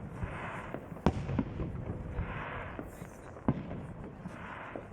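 Fireworks salute going off: two sharp bangs, about a second in and again about three and a half seconds in, with smaller pops and stretches of crackling between them. It dies away toward the end.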